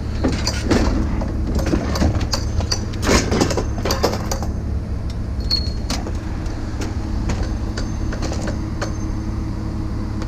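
Metal clanking and rattling as scrap is handled, busiest in the first four seconds or so and thinning to a few clicks after, over a vehicle engine idling steadily.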